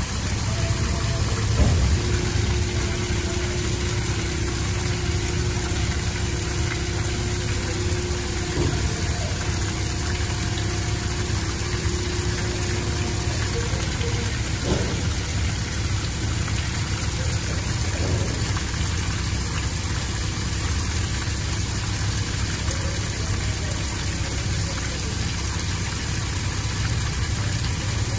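Mack Granite rolloff truck's diesel engine idling steadily, with liquid draining from a tipped organic-waste compactor container and splashing onto the pavement.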